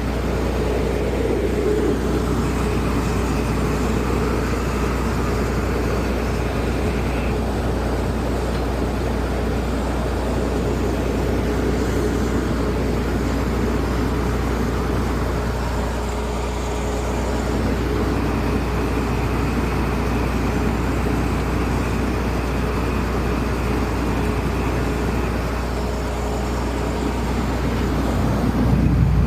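Combine harvester engine running steadily, with a faint high whine that comes in twice.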